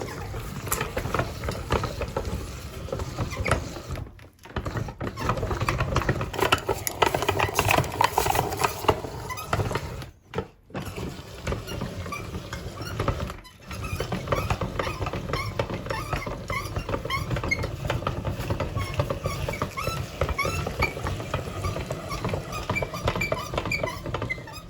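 Meat grinder working through a frozen ice-cream finger: dense crunching and squeaking over a low running rumble, with three brief breaks where it cuts out.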